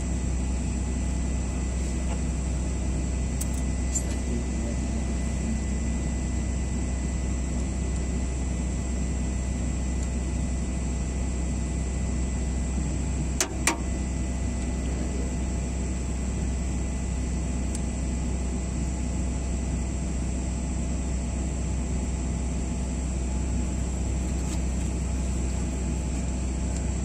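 Steady low machine drone, with a few light metallic clicks and one sharper click about halfway through, in keeping with hand tools and a feeler gauge working on the excavator engine's valve rockers during valve-clearance adjustment.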